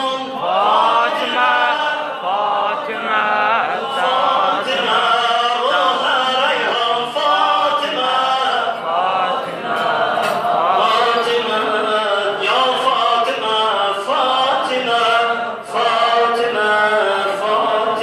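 A man solo-chanting a mövlud, an Azerbaijani devotional hymn in praise of Fatimah Zahra, into a microphone, in long phrases of wavering held notes with brief breaths between them.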